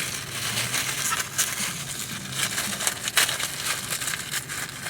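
Takeout food packaging being handled, crinkling and crackling irregularly with scattered small clicks.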